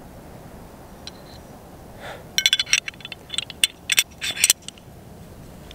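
10mm cartridges being pressed into a Glock 20 magazine: a quick run of sharp metallic clicks and clinks over about two seconds, about halfway through.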